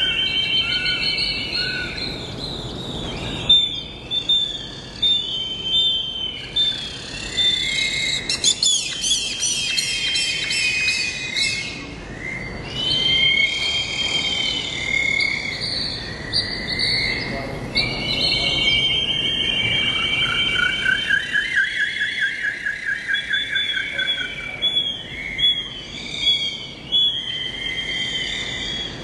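Birds calling and singing together: overlapping chirps, arching whistles and rapid trills, with a long rapid trill about two-thirds of the way through.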